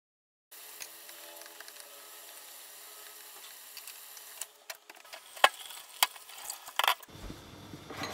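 Mitsuba leaves boiling in water in a small aluminium saucepan on a gas hob: a steady hiss broken by several sharp clicks, the loudest about halfway through. About a second before the end the background changes to a lower hum, and there is a light click as a hand handles a ceramic bowl on a steel counter.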